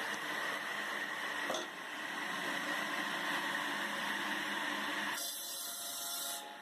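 A homemade log-processing machine running with a steady mechanical whine over a noisy rush. The sound changes character near the end.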